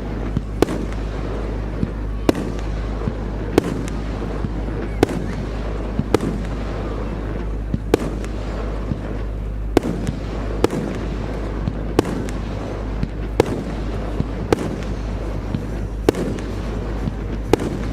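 Fireworks display: sharp bursts of aerial shells about once every second or so, over a steady low rumble.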